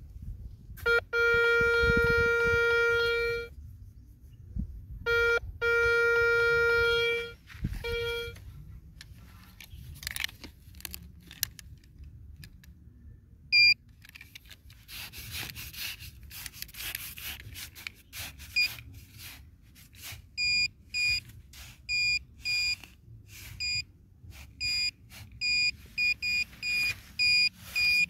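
Metal detector giving a steady mid-pitched tone twice for a couple of seconds over the hole, signalling a metal target in the soil. Later a handheld pinpointer probe in the loose dirt gives a run of short high beeps that come faster near the end as it closes in on the target, with scraping of soil between.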